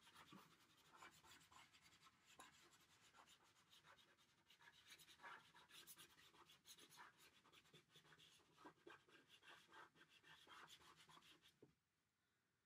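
Faint scratching of chalk pastel on paper, many short strokes as a pattern is coloured in, stopping about a second before the end.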